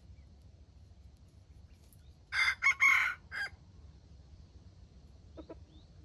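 A rooster crowing once, a short crow broken into a few parts, starting a little over two seconds in and lasting just over a second. A much fainter short call and a few faint high chirps follow near the end.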